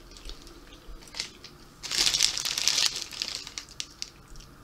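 Foil snack bag crinkling as it is handled, with a loud rustle of about a second in the middle and small crackles around it.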